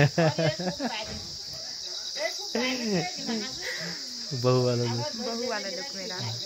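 A steady, high-pitched chorus of crickets chirring continuously, with people's voices coming and going over it.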